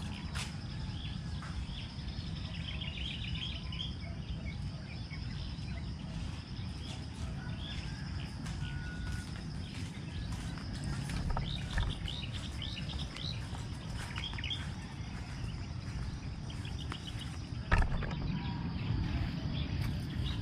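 Rural outdoor ambience: songbirds chirping in short trills on and off over a steady low rumble, with a faint steady high-pitched drone. A single sharp knock near the end.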